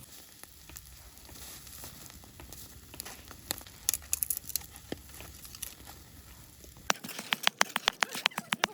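Food cooking over a fire, crackling and popping: faint scattered crackles at first, then, after a sudden change about seven seconds in, a dense run of loud sharp pops, several a second.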